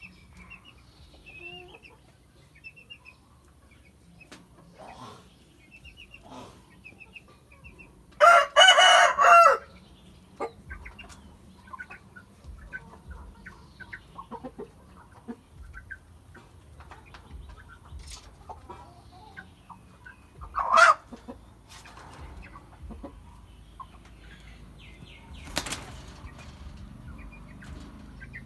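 Rooster crowing once, loud, about eight seconds in, with soft clucks scattered through the rest; a shorter call comes about two-thirds of the way in, and a brief flutter of wings near the end.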